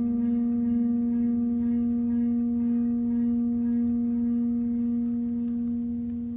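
A single held musical tone with overtones, ringing steadily with a slight wavering and slowly fading.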